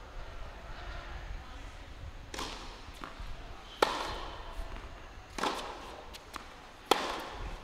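Tennis racket hitting the ball in a rally. A loud serve strike comes about halfway through, then a return from the far end, then a loud forehand strike near the end.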